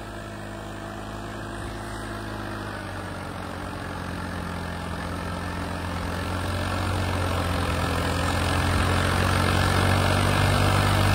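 Swaraj 855 FE tractor's three-cylinder diesel engine working hard, pulling a heavily loaded trolley through soft sand. Its steady note grows gradually louder.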